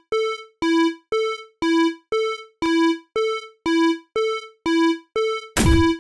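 Electronic railway level-crossing warning bell ringing, evenly spaced strikes about two a second that alternate between a lower and a higher tone. About five and a half seconds in, a brief noisy burst sounds over it.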